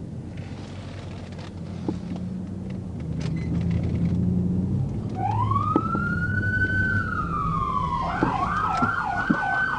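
Police patrol car siren switched on about five seconds in: a wail that rises and then slowly falls, joined near the end by a fast yelp. Under it runs the patrol car's engine.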